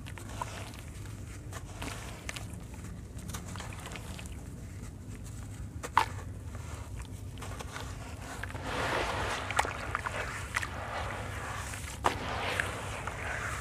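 Hands crumbling chunks of dried sand-cement into a tub of water: gritty crunching and crackling of breaking lumps and falling grit in the water, thickening in the last few seconds, with a couple of sharp cracks, one near the middle and one near the end. A steady low hum runs underneath.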